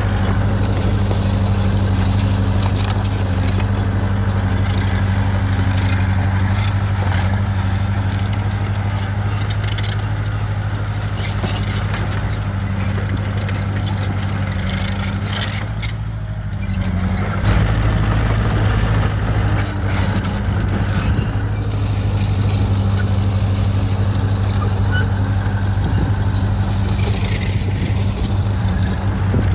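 Bulldozer's diesel engine running steadily under load, with a constant low hum and frequent clicking and clatter. The engine eases off briefly about halfway through, then picks up again.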